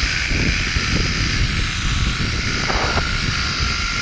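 Zip line trolley running fast along the steel cable, a steady whirring with a thin high whine, mixed with wind rushing over the microphone.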